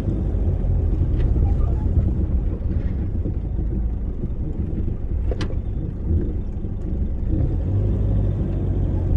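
Toyota Hilux engine running with a steady low rumble as the truck creeps forward slowly, heard from inside the cab, with one sharp click about five seconds in.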